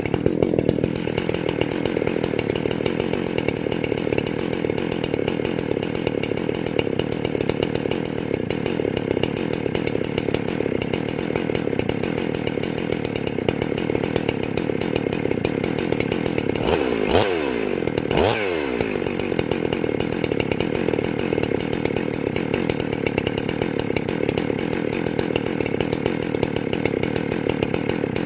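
Ported two-stroke chainsaw idling with its low-speed carburetor jet set too rich, so it is loading up with fuel. About two-thirds of the way in it is revved twice in quick succession and is slow to rev, a sign of the over-rich low jet.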